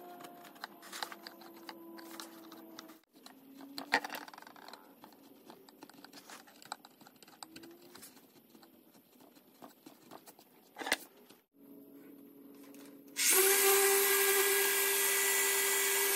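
Chisel paring and scraping across a wood tabletop: quiet scattered scrapes and clicks with a couple of sharper knocks. About 13 seconds in, a random orbital sander with a dust extractor starts up loudly and runs steadily with a constant hum.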